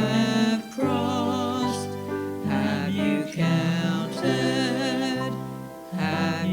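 Slow hymn music with held chords over a bass line, the chords changing every second or so.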